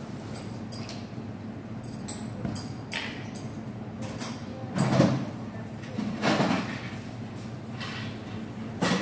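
Café work behind the counter: light clicks and knocks of cups and equipment being handled, then a few louder dull thuds, like cupboard or door knocks, about five, six and a half and nine seconds in.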